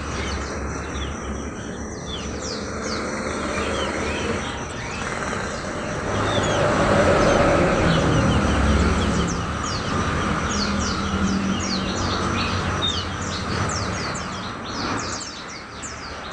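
Many caged songbirds chirping at once: a dense chatter of short, quick chirps that thickens in the second half, over a steady background din.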